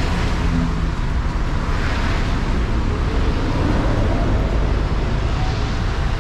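Street traffic noise with a tram moving off close by, a steady low rumble throughout.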